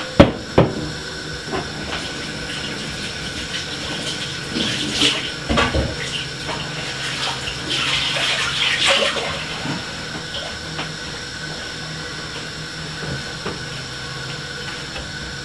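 Water running from a kitchen tap with irregular splashing, after a sharp knock just at the start.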